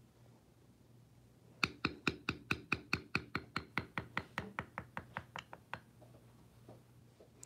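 Rapid, evenly spaced mallet strikes on a checkered round bevel stamping tool, tapping it into leather about five times a second; the run starts about a second and a half in and stops about a second and a half before the end.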